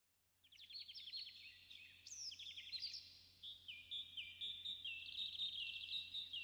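Faint birdsong: rapid chirping trills and short whistled glides from one or more birds, slowed down and reverberant, ahead of a song's intro.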